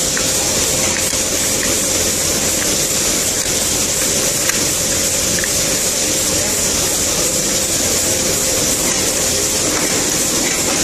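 A QLQ017 semi-automatic zipper slider assembly machine running: a steady mechanical hiss with a constant hum, and a few faint light clicks.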